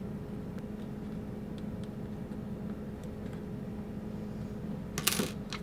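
Steady low electrical hum with a few faint, scattered ticks as a small screw is turned by hand into the Cyclone paddle axle. A short rustle about five seconds in.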